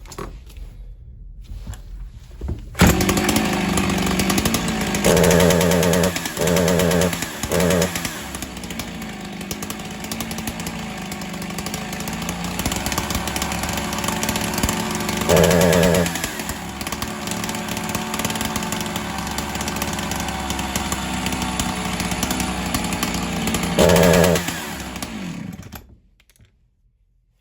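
Husqvarna 372XP two-stroke chainsaw starting about three seconds in and running, with five short throttle blips that make it louder but barely raise its pitch, then cutting off near the end. It will not rev up, which the mechanic puts down to a failing ignition coil losing spark at high revs.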